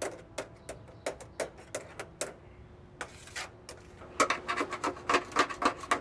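A flat metal scraper scraping dried red candle wax off a metal candle rack: a run of short scrapes, a few a second, coming quicker and louder over the last two seconds.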